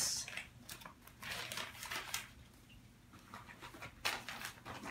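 Newspaper wrapping rustling and crinkling in short, irregular bursts as paper-wrapped orchid pots are handled, with the loudest rustle near the end.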